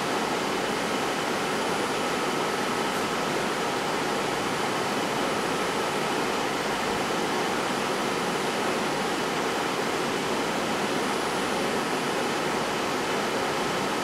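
Steady rushing air noise with faint high steady whines over it, as from running fans.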